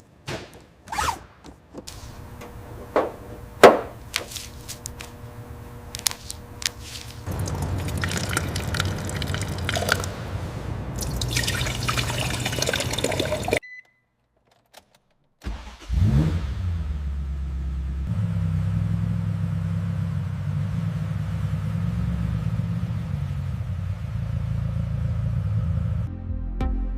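A few sharp clicks and knocks, then a steady hiss that cuts off into a brief silence. After that a car engine starts, its pitch rising, and runs steadily.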